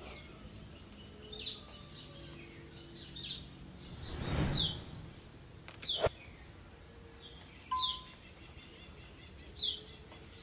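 Tropical forest ambience: a steady high insect drone, with a bird repeating a short downward call about every two seconds. A brief swell of noise comes near the middle, and a sharp click at about six seconds.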